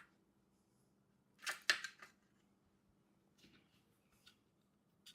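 Light clicks and taps from small hive parts and screws being handled: a short cluster of sharp clicks about a second and a half in, then a few faint ticks.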